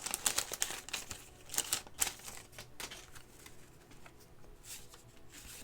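Trading cards and their paper pack wrapper being handled: crinkling and rustling with quick clicks as cards are slid and flipped, busiest in the first two or three seconds, then dwindling to faint, scattered rustles.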